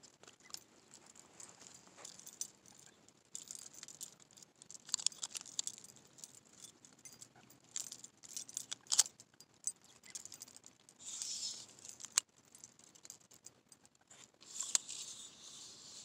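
Close handling noise of fishing gear and a freshly caught bass: rustling with scattered sharp metallic clicks and jingles as the lure is worked out of the fish's mouth and the fish is hung on a clip. There are longer hissy rustles about eleven seconds in and again near the end.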